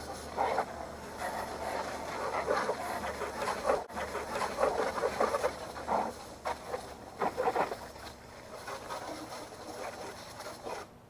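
Water from a hose spraying and splashing on a lawn mower, rinsing off degreaser, in uneven surges with a brief break about four seconds in.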